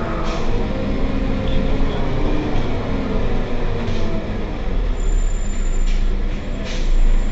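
Heuliez GX 127 city bus under way, its diesel engine running with a note that shifts in pitch, along with a few short knocks or rattles. A thin high whine joins about five seconds in, and the sound grows louder near the end.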